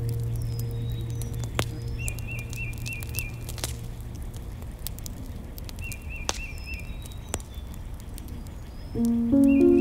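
Rain pattering, with many sharp drips and a bird chirping in short repeated trills. Background music fades out in the first few seconds and comes back near the end.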